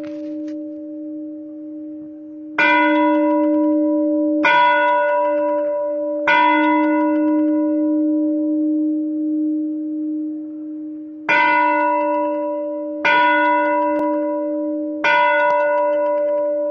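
A single bell tolled at one pitch: three strokes about two seconds apart, a pause, then three more. Each stroke rings on long after it is struck.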